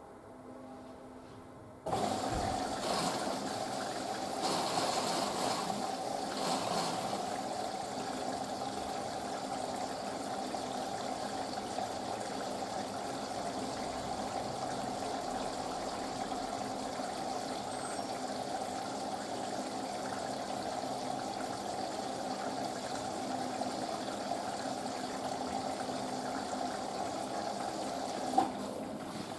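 Panasonic washing machine taking in water on a wool cycle: a steady rush of water into the drum that starts abruptly about two seconds in and cuts off with a click near the end, as the inlet valve opens and closes.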